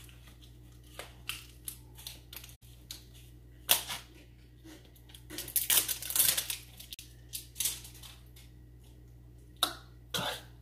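Kitchen handling noises of food preparation: scattered sharp clicks and knocks, with a longer, louder noisy stretch about six seconds in.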